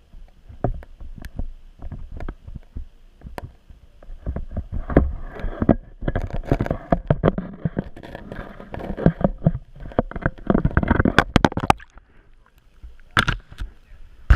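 Muffled knocks, scrapes and water sloshing picked up by an underwater camera in its housing as it is jostled beneath the ice and hauled up through the fishing hole. The knocking is busiest in the middle, eases off, then comes back as a couple of sharp knocks near the end.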